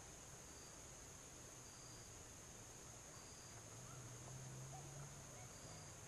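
Faint insect chorus in the woods: a steady high-pitched drone, with faint short chirps every second or two and a low hum underneath.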